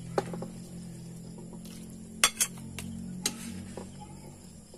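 Metal spatula stirring noodles in a wok, scraping and knocking against the pan, with sharp clinks about a fifth of a second in, a quick pair just after two seconds, and one more about three seconds in.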